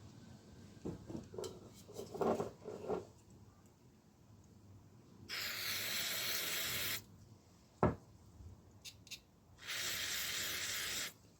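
Aerosol cleaner sprayed in two steady bursts of about a second and a half each, on bicycle pedal parts being cleaned. Before the bursts there are a few light knocks and rattles of parts being handled, and a sharp click comes between the two bursts.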